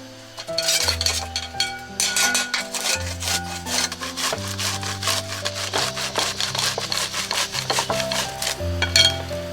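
Rapid, regular rubbing strokes, several a second, over background music with a melody.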